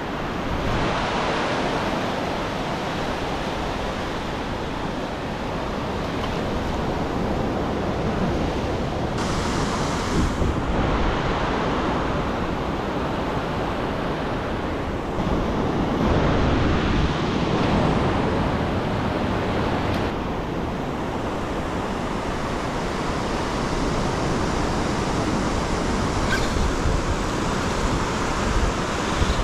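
Small surf breaking and washing up a sandy beach: a steady rush of water that swells louder now and then as waves come in.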